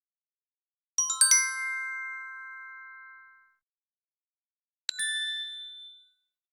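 Two chime sound effects: about a second in, a quick run of five or so bright tinkling notes that ring on and fade over about two and a half seconds; then, near the end, a shorter two-note ding that dies away within a second.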